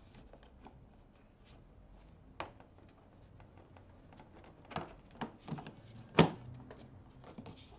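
Black plastic trim piece on a Honda Gold Wing being handled and pressed into place against the body panels: a handful of light plastic clicks and knocks, the sharpest about six seconds in.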